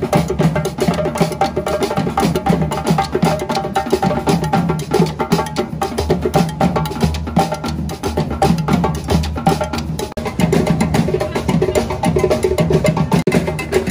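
A street drum group playing a steady, driving rhythm on stand-mounted snare drums and djembes, with a brief dip in level about ten seconds in.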